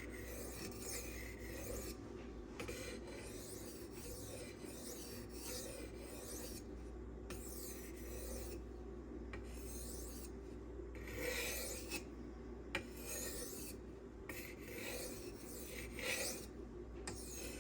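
M390 steel knife blade being stroked back and forth across a sharpening stone, a continuous scraping rasp with a few louder sweeps.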